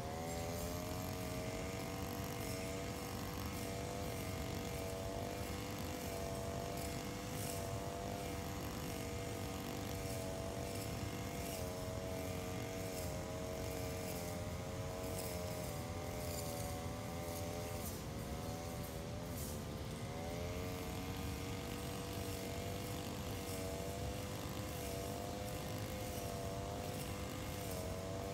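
Engine-driven brush cutter running steadily at working speed, its engine pitch wavering slightly, with a brief dip and recovery about two-thirds of the way through.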